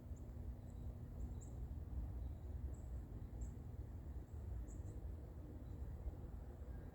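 Faint, short, high chirps repeating irregularly about once a second, typical of small birds calling, over a steady low rumble.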